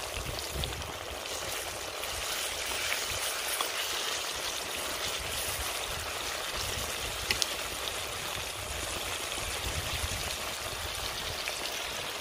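Chicken frying in a pot of hot oil: a steady sizzle with crackling, and two sharp clicks a little after seven seconds in.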